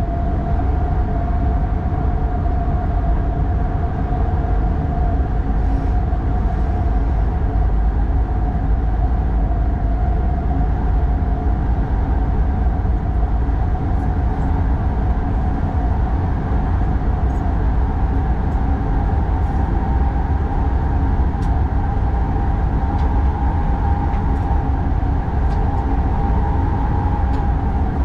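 X40 electric multiple unit running at speed, heard from the cab: a steady low rumble with a steady whine that rises slightly near the end, and a few faint ticks.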